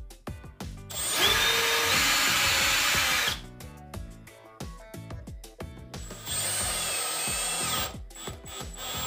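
Power drill running twice for about two seconds each, first drilling a pilot hole into a wooden board, then driving a wood screw into it, with a motor whine over a bed of rhythmic background music.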